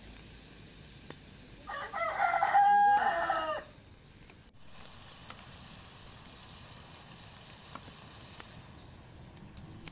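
A rooster crowing once, a single call of about two seconds.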